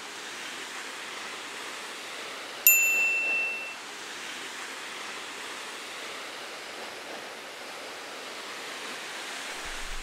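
Steady rushing noise of falling water from a waterfall. About two and a half seconds in, one bright, high ding rings out and fades over about a second.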